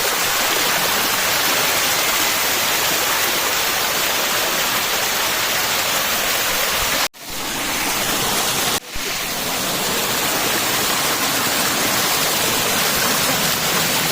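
Steady, loud rush of falling water. It cuts out for an instant twice, about seven and nine seconds in.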